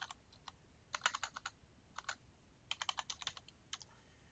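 Typing on a computer keyboard: quick runs of key clicks in several short groups with pauses between, stopping shortly before the end.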